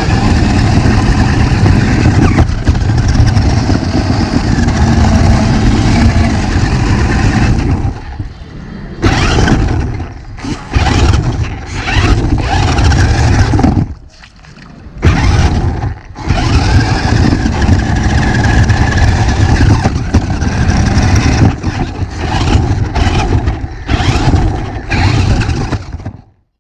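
Electric RC rock crawler's motor and gearbox whining as the car is driven in bursts, with a heavy rumble from driving over rough ground. It stops and starts several times, with short pauses, and cuts off suddenly near the end.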